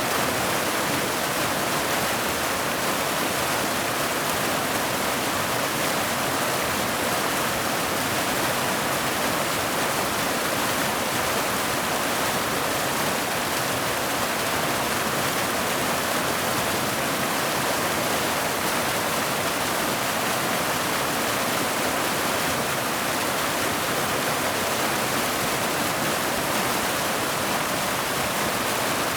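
Mountain waterfall cascading down boulders into a pool: a steady, even rush of falling water that does not change.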